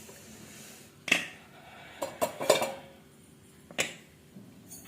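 Steel utensils clinking and knocking as mini idlis are taken out of the idli steamer: a sharp knock about a second in, a quick cluster of clinks around two seconds, and one more knock near four seconds.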